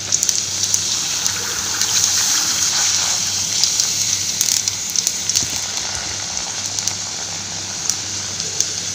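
Small pooris deep-frying in hot oil as they puff up: a steady sizzle with many tiny crackles.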